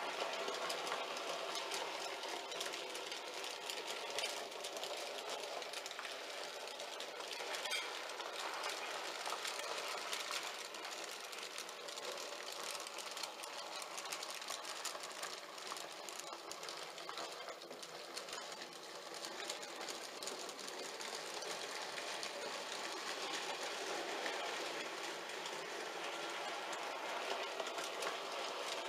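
N gauge model trains running on the layout's track: a steady whirring rattle of small wheels and motor, with fine rapid clicking throughout.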